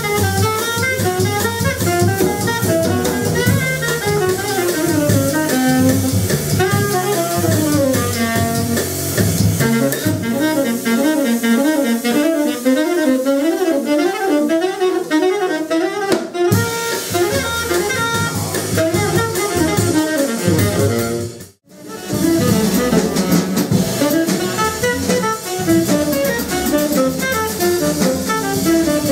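Live jazz trio: a tenor saxophone plays a melody over walking upright bass and drum kit, with the bass falling away for a few seconds in the middle. A brief drop to silence about three-quarters of the way through leads straight into another passage by the same saxophone, bass and drums.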